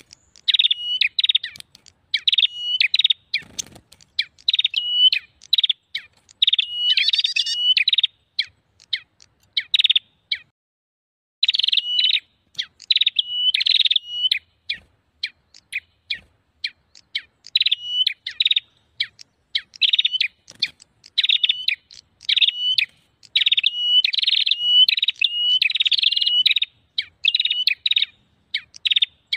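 Lure recording of prenjak birds calling in an agitated, busy chatter: rapid runs of sharp, high chirps, several a second, broken by a couple of short pauses.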